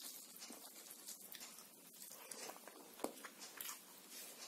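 Faint wet clicks and smacks of someone chewing a mouthful of chicken curry and rice, with soft squishing of fingers mixing rice at the start and one sharper click about three seconds in.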